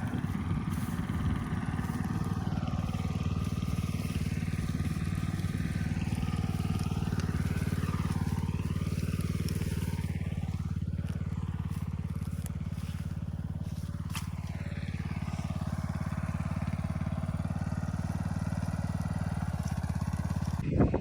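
Gasoline rototiller engine running steadily under load while its tines churn soil.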